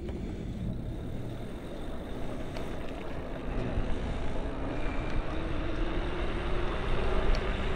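Wind rumbling on a GoPro microphone, with road noise, as an e-bike pulls away under pedal assist, growing louder as it picks up speed. A faint steady hum comes in about halfway through.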